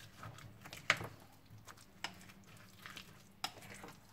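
Metal spoon stirring thick buckwheat-flour batter with potato slices in a glass bowl: soft squelching, with a few sharp clinks of the spoon against the glass about a second apart.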